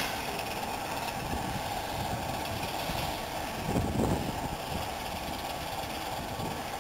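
Diesel locomotive engine running steadily as a low rumble, with a louder low thump about four seconds in.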